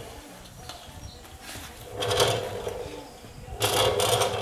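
Two short bursts of arc welding crackle, each well under a second long, as the straightened steel frame horn is tack-welded back in place.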